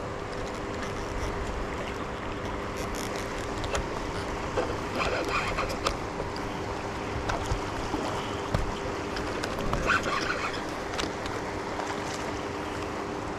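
Water rushing through river rapids, with a steady low hum underneath. Short splashes and clicks come now and then as a surface lure is worked across the current, with a splash at the lure near the end.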